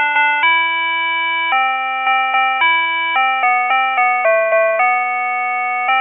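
Japanese pedestrian crossing signal playing its electronic walk melody: a simple tune of bright beeping notes, mostly short with a few held longer. The melody signals that the walk light is green and it is safe to cross.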